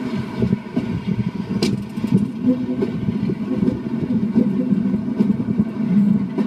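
Class 45 'Peak' diesel locomotive's Sulzer twelve-cylinder engine running steadily under power, a constant low drone mixed with wheel, rail and wind noise heard from a carriage window. One sharp click about two seconds in.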